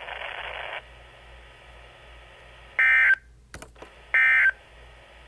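NOAA Weather Radio broadcast closing an EAS weekly test: two short buzzy bursts of the SAME digital end-of-message code, about a second and a half apart, marking the end of the alert. Radio hiss cuts off about a second in, and a click sounds between the bursts.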